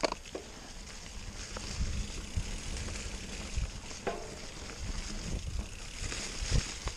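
Mountain bike tyres rolling over a dry, leaf-covered dirt trail: a steady crackling hiss, with a few low thumps and clicks as the bike goes over bumps.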